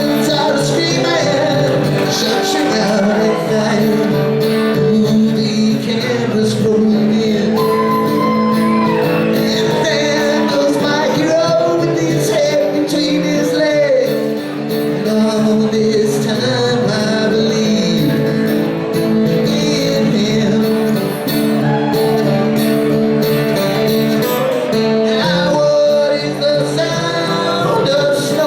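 Rock band playing live: electric guitars, bass and drums under a sung lead vocal, loud and continuous.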